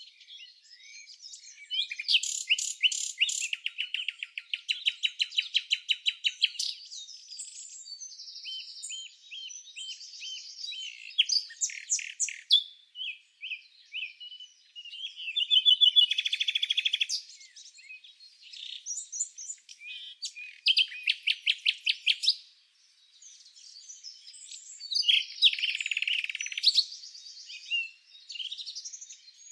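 Small songbirds chirping and singing: overlapping high chirps and fast trills, with short pauses between phrases.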